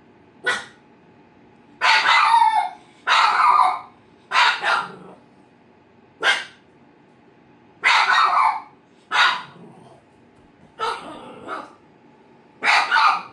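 Shiba Inu barking at a cardboard box it dislikes: about nine irregular barks, some short and sharp, others drawn out.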